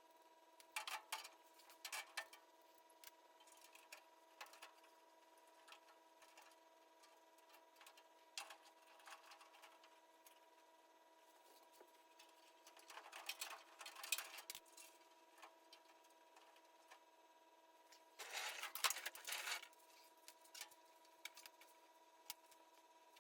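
Faint, intermittent clicks, taps and short scraping bursts of hand work with tools and metal parts, over a steady electrical hum. The loudest is a dense burst of about a second and a half near the end.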